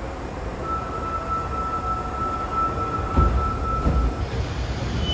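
Osaka Metro 21 series subway train pulling away from an underground platform, its running rumble building as it gathers speed. A steady high tone holds for a few seconds, and a couple of wheel knocks come about three seconds in.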